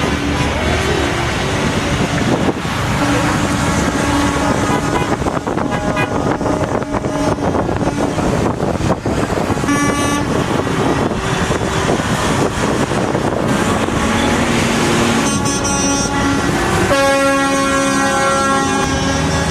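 Convoy of semi trucks passing with steady engine and road noise, their horns honking repeatedly: one blast about halfway through and a longer run of overlapping horns in the last few seconds.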